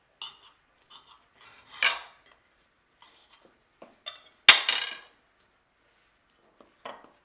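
Dishes and cutlery clinking and clattering: scattered light clinks with two louder clatters, the loudest about four and a half seconds in, as a plate and knife are handled while a sandwich is made.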